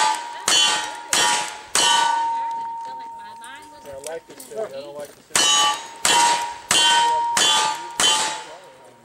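Ruger Vaquero single-action revolvers firing at steel plates, each shot followed by the ring of the hit plate. Three shots come about half a second apart, ending the first revolver's string of five. After a pause of about three and a half seconds while the shooter changes to the second revolver, five more shots follow in a steady rhythm about two-thirds of a second apart.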